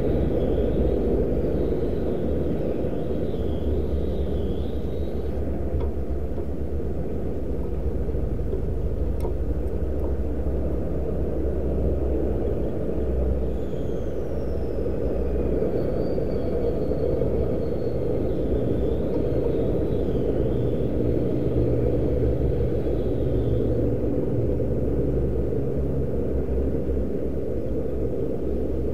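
A steady low rumble fills the whole stretch, with faint high, wavy bird calls over it for the first few seconds and again through the middle.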